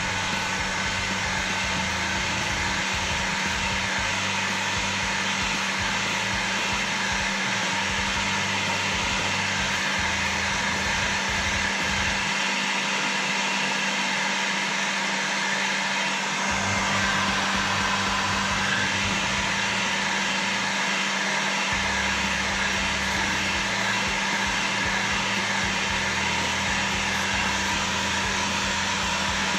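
Heat gun blowing steadily on its medium setting: an even rush of air with a faint whine from its fan motor, softening the adhesive under a shift knob.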